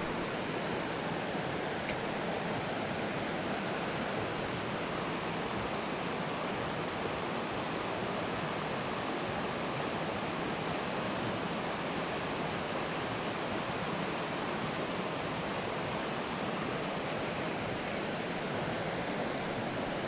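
Steady rush of creek current running over rocks and rapids, with one small click about two seconds in.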